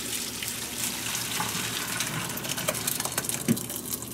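Hot macaroni water poured from a stainless steel pot through a plastic colander into a sink: a steady splashing rush, with a sharp knock about three and a half seconds in.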